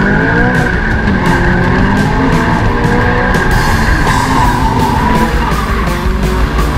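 Toyota 86's 2.0-litre flat-four engine revving up under hard driving, with tyres squealing as the car slides. Background music with a steady beat plays along.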